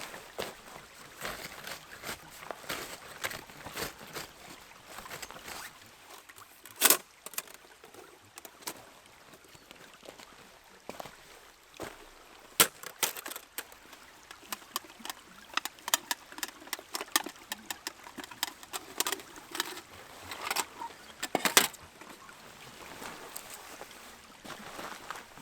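Irregular clicks, knocks and light clatter with rustling in between, a few sharper knocks standing out, as of outdoor gear being handled.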